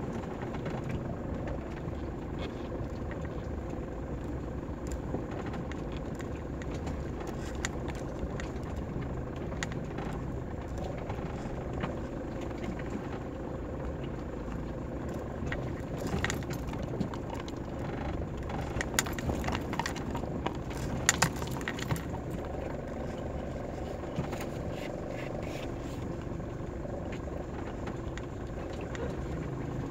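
Mitsubishi Pajero Mk2 running steadily on a rough dirt track, heard from inside the cab, with short clicks and rattles from loose parts over bumps, most of them a bit past halfway.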